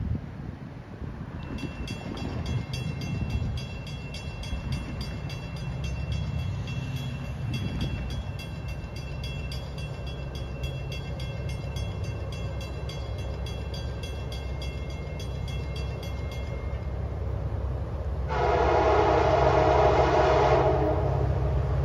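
Approaching train's diesel locomotive horn sounding one long blast about 18 seconds in, the loudest sound, over a low rumble. Before the horn, a bell rings rapidly and steadily for about fifteen seconds and then stops.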